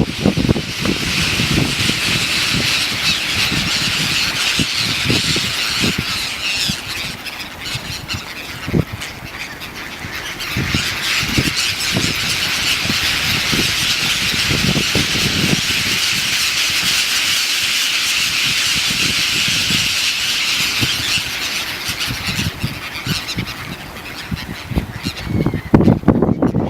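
A large flock of birds calling continuously, many squealing, squawking calls overlapping into one chorus that thins briefly twice.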